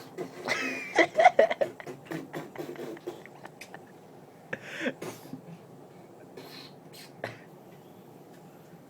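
Mouth-made beatbox-style sound effects: a quick burst of clicks, pops and a short whistling glide, then scattered single clicks and pops, mimicking the hits of a yoyo trick.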